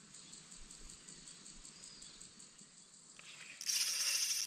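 Faint steady insect chirring, then about three and a half seconds in a loud, harsh buzz from a spinning reel lasting just under a second and cutting off abruptly, as a fish takes line.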